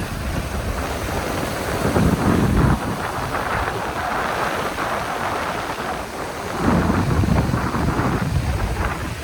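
Wind buffeting the microphone over the steady wash of surf on a beach, with two louder surges about two seconds in and again near seven seconds.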